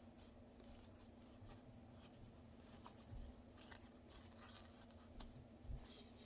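Near silence with faint, scattered small clicks and scratches: a cockatoo's beak nibbling at peanut butter. A faint steady hum lies underneath.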